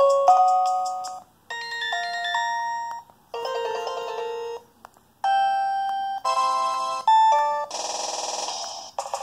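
Preloaded ringtones or alert tones on an LG UX210 phone's speaker, playing one after another as a string of short synthesized chime melodies, each a second or two long with brief gaps between. About three quarters of the way in, a buzzier, fizzier tone takes over.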